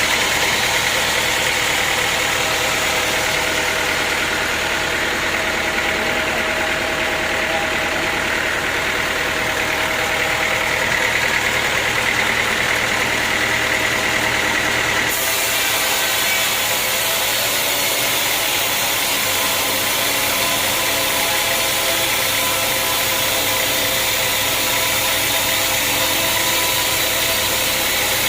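Sawmill machinery running steadily, a loud continuous mechanical drone and hum, changing abruptly in tone about halfway through.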